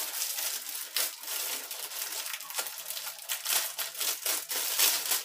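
Plastic packaging crinkling and crackling in irregular bursts as it is unwrapped by hand.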